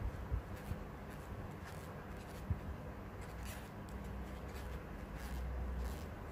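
Faint scratchy rustling of cotton yarn being pulled through a crochet hook as chain stitches are worked, with two soft low thumps, one at the very start and one about two and a half seconds in.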